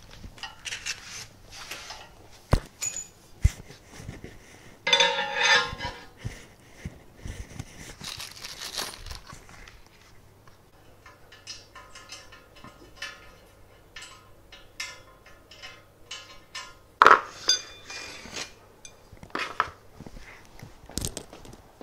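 Parts being handled and set down: irregular clinks and knocks with a few short bursts of rustling.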